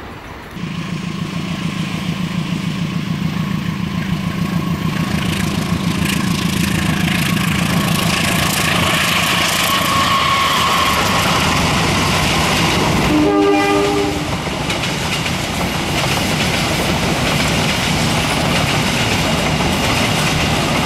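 Diesel-electric locomotive hauling a passenger train past at speed: a steady low engine note under the noise of wheels on rail. Past the middle, the locomotive's horn gives one short blast of about a second.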